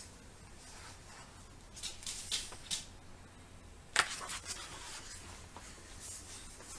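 A picture book's paper pages being handled and turned: a few soft rustles, then a sharp sudden sound about four seconds in as the page turns over, followed by a few small ticks.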